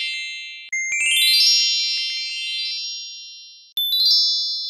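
Magic-bells sparkle sound effect: cascades of bright, tinkling bell-like chimes. Under a second in, a quick run of chime notes climbs in pitch and rings out, fading slowly. A new glittering run begins near the end.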